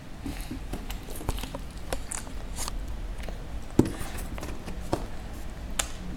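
A pet chewing pieces of clementine: irregular short smacks and clicks, one sharper than the rest about four seconds in.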